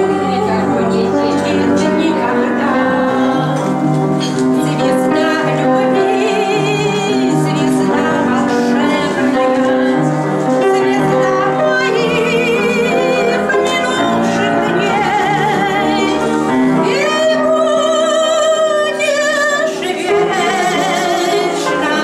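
A woman singing a song in a sustained, operatic style with strong vibrato, over instrumental accompaniment.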